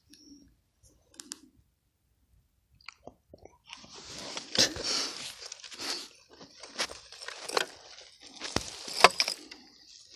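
Gloved hand rummaging among rusty metal Mauser rifle oil cans in a rusted steel box: crunching and scraping with several sharp clinks, starting a few seconds in after near quiet.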